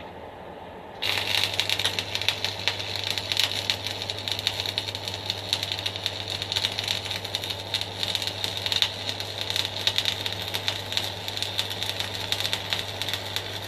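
Arc of a stick welder burning an E6013 rod, crackling and sizzling steadily for about thirteen seconds from about a second in, over a low steady hum from the welder under load.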